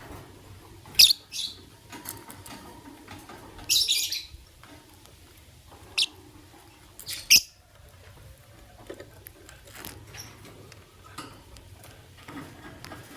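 Lovebirds giving short, shrill chirps, five or six scattered calls with the loudest about a second in and about seven seconds in, between faint scratching and shuffling.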